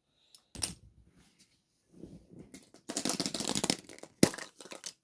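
Surprise-egg packaging being handled and opened: a sharp plastic click, then a few seconds of crinkling and tearing of a wrapper, with another sharp click near the end.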